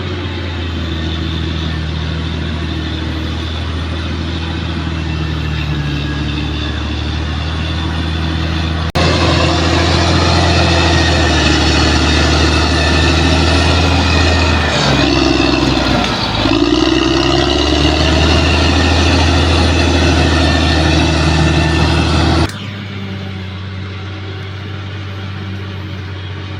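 Bulldozer's diesel engine running steadily. It turns abruptly louder about a third of the way in, briefly sags and shifts in pitch in the middle, and drops back abruptly near the end.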